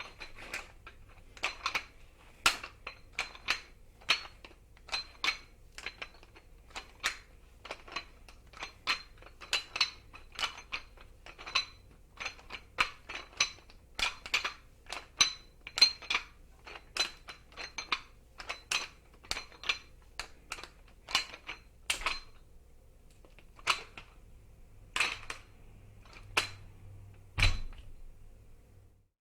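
Metal gym weights clinking and clanking over and over, about one or two knocks a second, each with a short metallic ring. The knocks thin out towards the end, and one heavier, deeper thud comes near the end.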